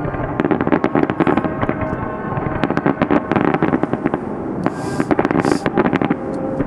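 Fireworks crackling: dense rapid pops and crackles in several clusters, with two short hissing bursts near the middle.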